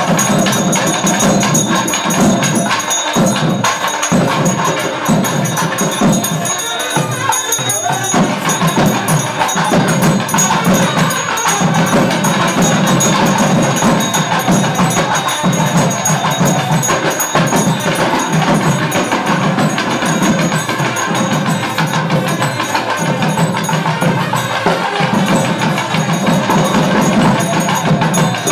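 Temple festival music: loud, dense percussion playing steadily without a break.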